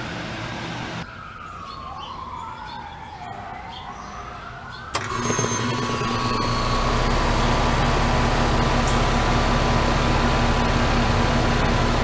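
Coleman heat pump's outdoor unit running, compressor and condenser fan humming steadily; the hum comes in with a click about five seconds in and grows louder a second or so later. Before that, a wailing tone rises and falls, like a siren.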